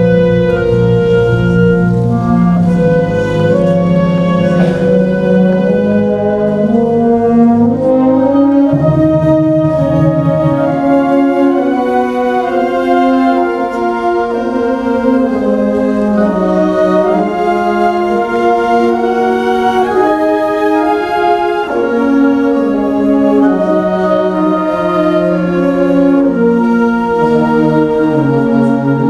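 Brass-led band music: held chords with slowly moving lines, the low brass strongest in the first eleven seconds or so.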